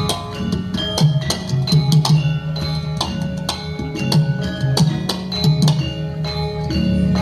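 Javanese gamelan playing: struck metallophones ringing at several pitches over steady hand-drum beats.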